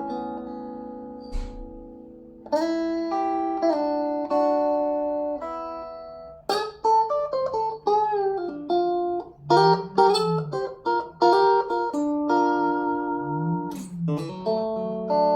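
Stratocaster-style electric guitar with three single-coil pickups (FABIO ST100 WH) played through a FABIO G-10 combo amp, with a glassy tone. A ringing chord dies away, then comes a run of chords and single-note lines, with a note bent up and back down twice, about two-thirds of the way in and again near the end.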